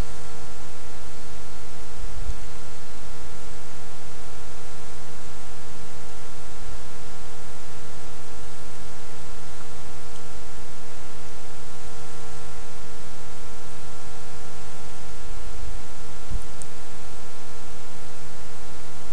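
Steady electrical hum of several fixed tones over a constant hiss, with no other sound standing out.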